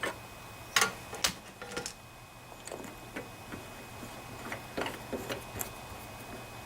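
Light clicks and taps of small metal carburetor parts and hand tools being handled: a few at the start and about a second in, then a quick cluster around five seconds in.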